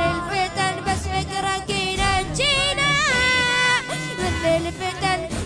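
A patriotic Iraqi rap song, sung here rather than rapped, by a young singer with backing music. The voice carries a wavering, ornamented melody and holds one long note about halfway through.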